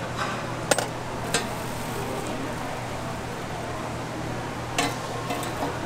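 Metal tongs clicking against a stainless-steel bowl as toppings and noodles are piled in: two sharp clicks in the first second and a half and a few more near the end, over a steady background hum.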